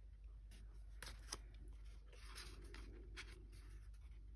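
Tarot cards being handled: a couple of sharp card clicks about a second in, a brief scraping rustle of card sliding against card, then a few more clicks, all faint.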